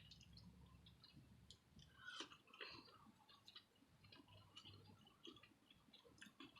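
Near silence with faint, scattered clicks and chewing sounds of someone eating, a little louder about two seconds in.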